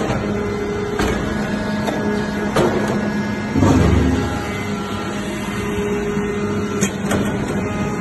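Hydraulic power unit of a vertical hydraulic press for aluminium scrap running with a steady hum, with scattered sharp clicks. About three and a half seconds in there is a louder low surge lasting under a second.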